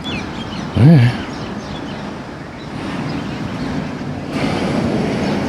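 Steady traffic noise from passing vehicles, which grows louder about four seconds in as a vehicle draws near. About a second in there is one short, low, voice-like sound, and faint bird chirps come near the start.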